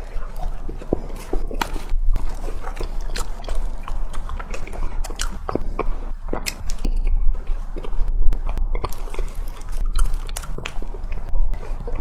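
Close-up sounds of pork floss bread being bitten and chewed: soft mouth smacks and small irregular clicks.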